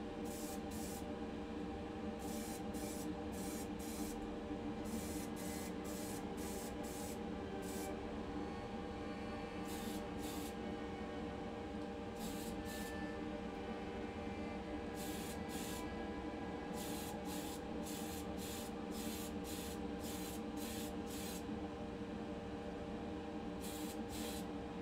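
Aerosol spray paint can sprayed in short bursts, usually two to four quick puffs in a row with brief pauses between groups, over a steady hum.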